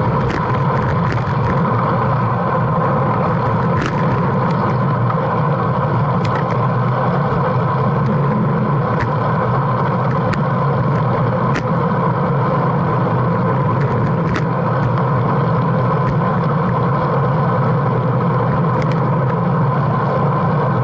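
Steady wind buffeting and tyre-on-road rumble picked up by a bike-mounted action camera on a road bike riding at about 40–50 km/h, with scattered sharp clicks.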